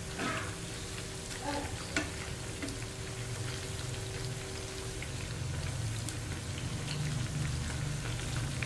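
Battered vegetable fritters deep-frying in hot oil, a steady sizzling and crackling, with a few sharp clicks of metal tongs as they are turned.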